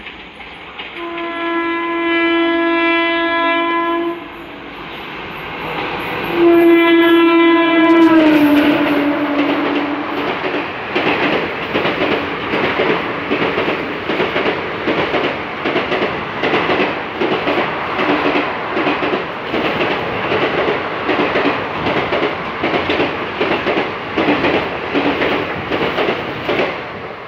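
Indian Railways express train passing through a station at speed. Its locomotive sounds two horn blasts, the second loudest and dropping in pitch as the locomotive goes by. The coaches follow with a rapid, rhythmic clickety-clack of wheels over the rail joints.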